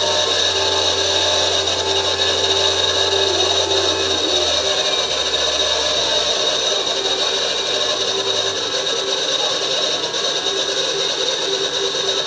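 CNC lathe spindle motor running on a frequency inverter, with a steady high-pitched whine over a low hum. The hum drops in pitch in steps about a third and halfway through, then dies away about two-thirds of the way in while the whine goes on.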